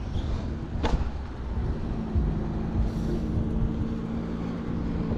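Riding noise from a 2000 W rear-hub-motor e-bike: wind rumbling on the microphone and tyre noise, with a sharp click about a second in. A steady hum joins from about two seconds in.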